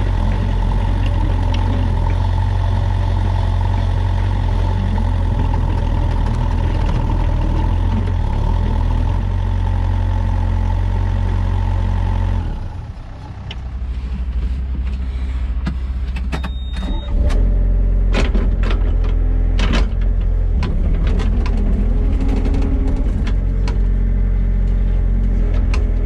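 Wacker Neuson 3503 mini excavator's diesel engine running steadily under work. About halfway its note drops, then it comes back up louder, with a series of sharp clanks and knocks from the machine working.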